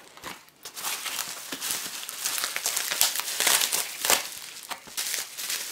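Package wrapping being crinkled and pulled open by hand, a dense run of crackling and rustling that starts about a second in.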